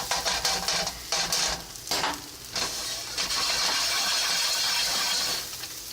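Scrambled eggs being stirred and scraped in a hot frying pan: a few scraping strokes over the first couple of seconds, then a steady sizzle that eases off near the end.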